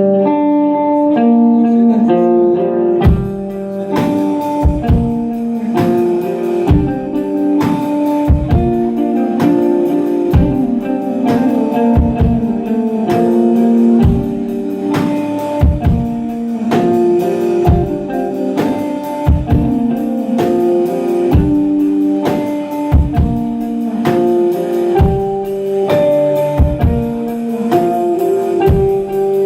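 Instrumental post-rock played live on guitar and drum kit: a repeating picked guitar riff, with the drums coming in about three seconds in and keeping a steady beat.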